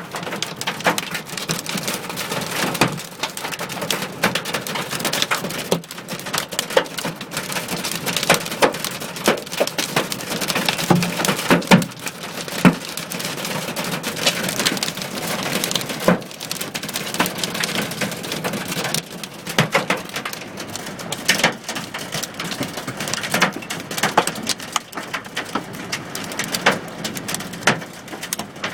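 Hailstones hitting a car's roof and body, heard from inside the car: a dense, irregular patter of hard impacts over a steady hiss of falling ice and rain.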